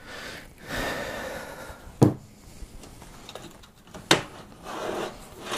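Power supply being worked out of an open-air mining-rig frame by hand: rustling and scraping, with two sharp knocks about two seconds apart.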